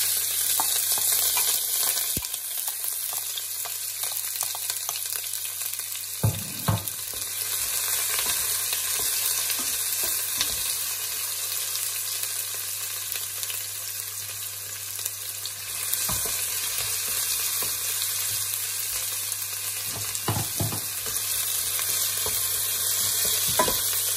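Chopped onion sizzling steadily in hot olive oil in a stainless steel pot as it starts to fry, stirred with a wooden spoon that knocks against the pot a few times.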